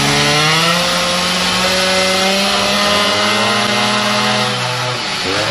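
Two-stroke Sachs 503 moped engine, tuned with a Polini 75 (65 cc) kit, running at full throttle on a roller dyno. Its pitch climbs steadily as the revs build for about four and a half seconds, drops off, then starts rising again at the very end.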